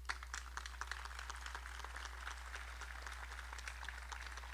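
Crowd applauding: a dense patter of hand claps that starts at once, is fullest in the first couple of seconds and thins out toward the end.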